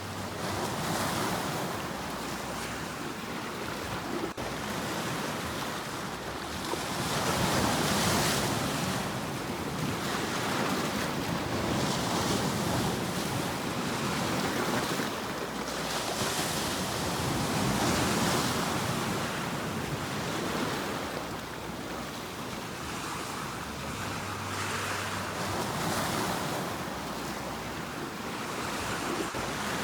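Sea waves breaking and washing up the shore in a continuous rush, each wave swelling and then drawing back every few seconds.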